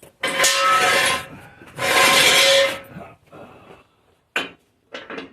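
Metal jack stand dragged across a concrete garage floor: two long scrapes of about a second each with a faint metallic ring, followed by a few short knocks near the end.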